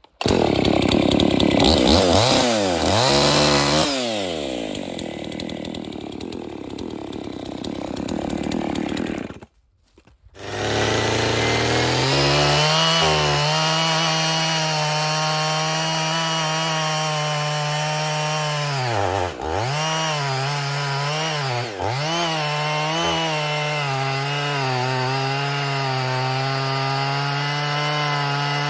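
Gas chainsaw revving and cutting into a pine log. It stops briefly about a third of the way in, then runs at steady high speed, dipping twice as it bogs in the cut.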